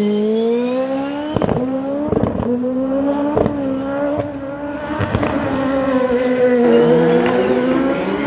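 Autocross buggy's turbocharged 939cc Ford engine running hard, its pitch climbing slowly, with a brief dip and pick-up about seven seconds in. Several sharp cracks sound over it.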